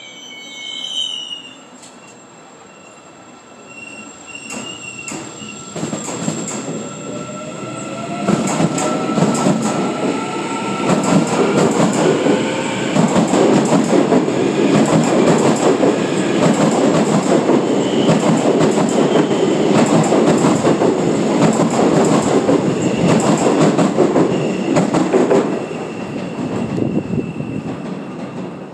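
Korail Line 4 electric train (set 341x44) pulling out past the platform. Its motor whine rises in pitch as it speeds up, then the wheels rumble and clack over the rail joints. The sound is loudest in the middle and falls away near the end as the last car passes.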